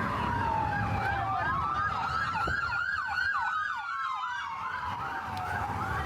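Emergency vehicle sirens on a city street: a slow wail that falls and then rises again, joined about a second and a half in by a second siren's fast yelp, about three sweeps a second.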